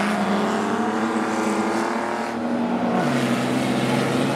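Speedway stock car engines running hard around the track, several engine notes at once, with the main engine note dropping sharply about three seconds in.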